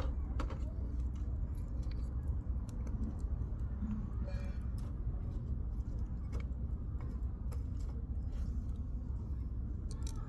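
Burning firewood in a campfire crackling, with scattered sharp pops and snaps over a steady low rumble.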